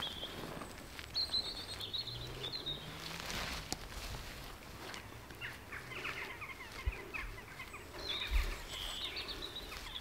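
Small songbirds singing: two bouts of high, quick twittering song, with a run of lower falling notes between them. Faint scratching and crumbling of soil being pressed down by hand sits underneath.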